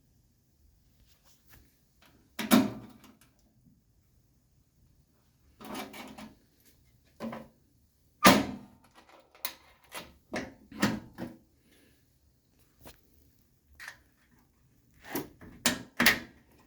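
Massey Harris Pony tractor's sheet-metal hood and its newly fitted latch being worked by hand: a string of irregular metal clunks and clicks with pauses between, the loudest about eight seconds in.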